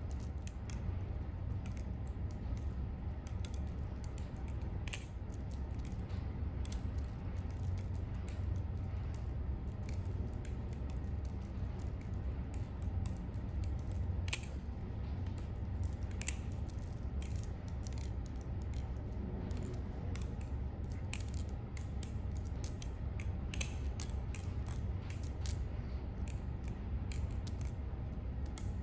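Wander Paim balisong being flipped: irregular metallic clicks and clacks as the handles swing on their pivots and tap together, over a steady low hum.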